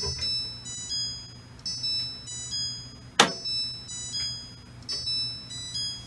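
Maytag front-load washer's end-of-cycle signal: a short tune of high electronic beeps, the phrase repeating about every second and a half, marking the finished cycle. A sharp click a little past halfway, over a low steady hum.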